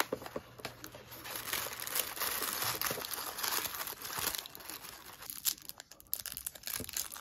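Tissue paper and a caramel's paper wrapper crinkling in the hands as a box of fresh caramels is unpacked and one sweet is unwrapped, with small clicks and rustles, loudest in the middle few seconds.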